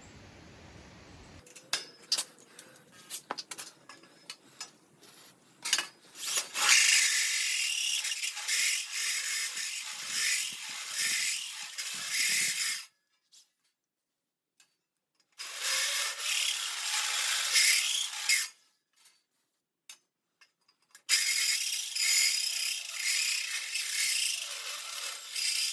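A power tool working steel plate in three separate spells, each a dense, high-pitched grinding noise that starts and stops abruptly. Light clicks and taps of metal being handled come before it.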